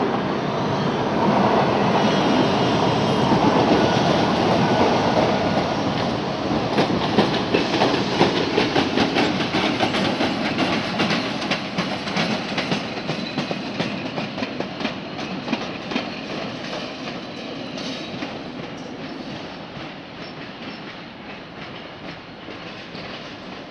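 Passenger train running past on the main line: a rumble that builds over the first few seconds, then a fast run of wheel clicks over the rail joints, fading steadily as the train moves away. A faint high wheel squeal is heard in the first few seconds.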